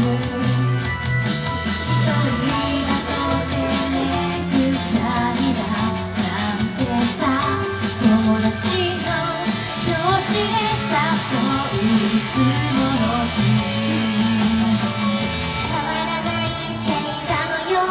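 Live J-pop performance: a female idol trio singing over a pop-rock instrumental accompaniment with a steady bass line.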